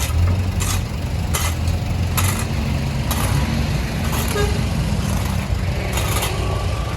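Caterpillar backhoe loader's diesel engine running under working load, its pitch shifting a little as the load changes, with irregular sharp clinks from the road surface being broken up.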